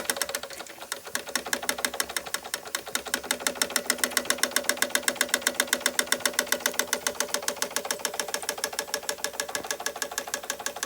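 Doll & Co 348/7 toy live-steam stationary engine running with a rapid, even beat. It eases off about a second in, then picks up again and holds steady as the regulator is tried.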